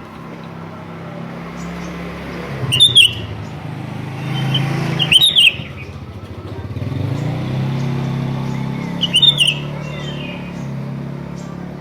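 Sooty-headed bulbul giving three loud, short call phrases, about a second in, midway and near the end, with fainter chirps in between. The hum of passing motor vehicles swells and fades underneath.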